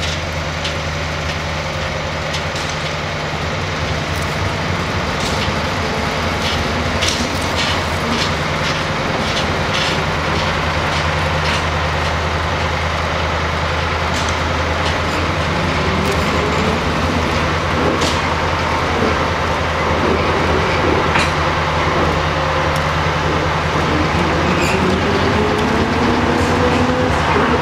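Railway turntable turning with a locomotive on its bridge: a steady low hum from its drive and running gear, scattered sharp clicks, and a tone that slowly rises in pitch over the last ten seconds.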